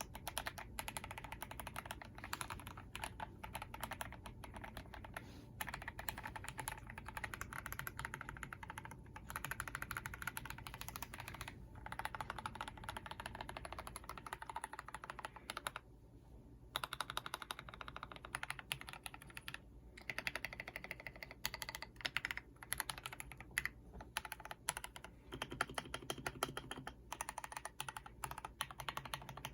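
Continuous typing on a KBD67 mechanical keyboard with lubed Glorious Lynx linear switches, stock case foam and a silicone plate dampener, and stabilizers lubed with 205g0. It is a dense stream of keystrokes with a few brief pauses, the longest about 16 seconds in.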